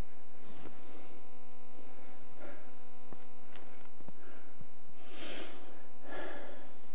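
Steady electrical mains hum, with a few faint ticks and light handling sounds, and two short breathy swishes near the end.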